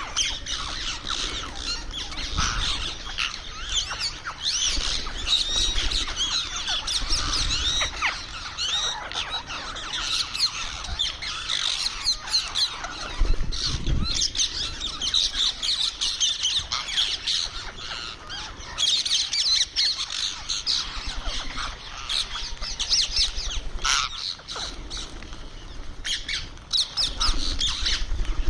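Indian ringneck parrot (rose-ringed parakeet) chattering while eating: a continuous run of quick, shrill squawks and chirps with no real pause.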